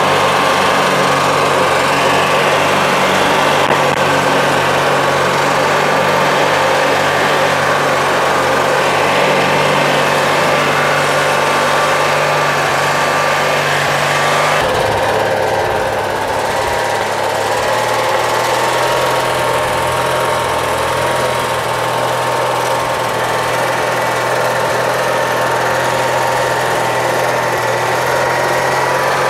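Riding lawn tractor engine running steadily as the tractor is driven across a lawn; about halfway through its tone abruptly shifts lower.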